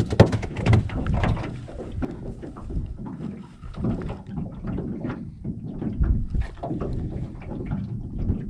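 A plastic cooler lid knocks shut at the start, then a low, uneven rush of wind and choppy water against the small aluminium boat's hull.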